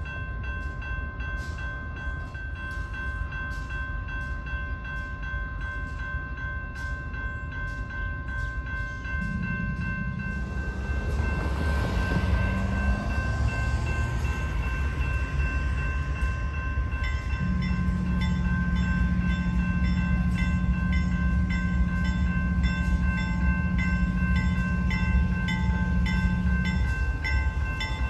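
Diesel freight locomotives pulling hopper cars, the engines rumbling and growing louder about ten seconds in, with a steady low drone in the second half. A warning bell rings steadily throughout at about two strikes a second.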